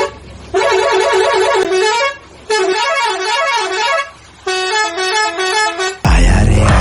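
An electronic musical horn plays a short tooting tune three times, each phrase about a second and a half long with brief pauses between. Music with a heavy beat comes in near the end.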